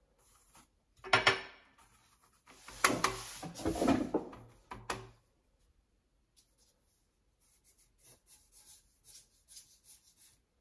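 A sharp knock about a second in, then a couple of seconds of a paintbrush scrubbing and clicking in a plastic watercolour palette on a glass desk. Near the end come faint, soft strokes of the brush on paper.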